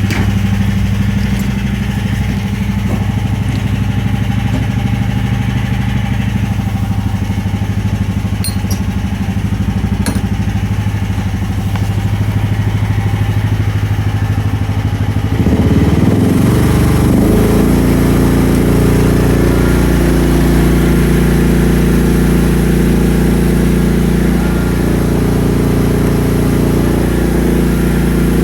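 Mini excavator's Briggs & Stratton 13.5 HP petrol engine running steadily. About halfway through it speeds up to a higher, louder running speed and holds there.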